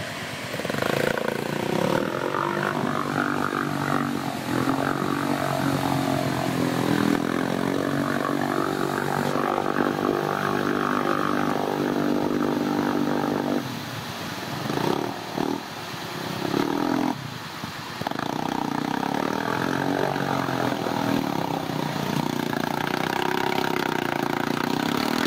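Kawasaki Brute Force 750 ATV's V-twin engine held at high revs under load while churning through deep mud. About halfway through the revs drop, rise and fall a few times, then hold steady again.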